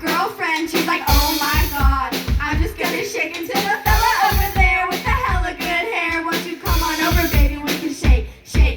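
Live band music: a singer over a drum kit, with the kick drum hitting in a steady rhythm. It briefly drops away near the end.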